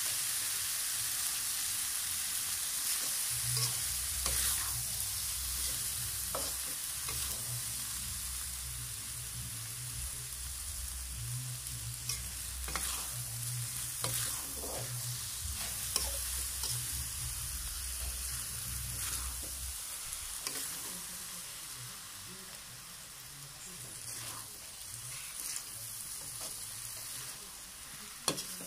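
Starch noodles and tomatoes sizzling in an aluminium pan while a spatula stirs and tosses them, with a steady frying hiss and scattered clicks and scrapes of the spatula against the pan.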